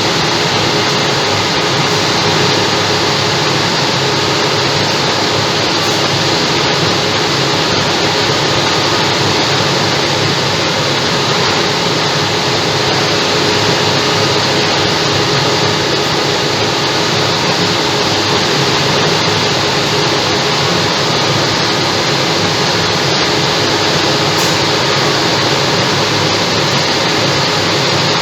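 Dump truck's diesel engine running steadily at a constant pitch, with no change in speed.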